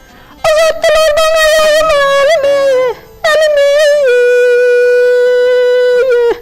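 A high singing voice holding long, wavering notes of a mourning hymn for Imam Hüseyin, in phrases broken by short breaths about half a second and three seconds in, with a bağlama playing along.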